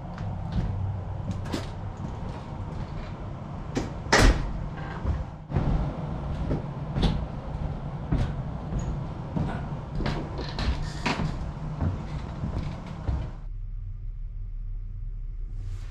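Irregular knocks and clicks of things being handled, over a steady low hum. The knocking stops about thirteen seconds in, leaving only the hum.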